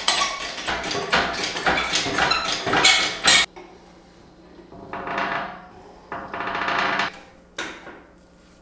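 Hand tools knocking and clicking rapidly against the metal of an engine, cutting off abruptly about three and a half seconds in. A few shorter, quieter rasping passes follow.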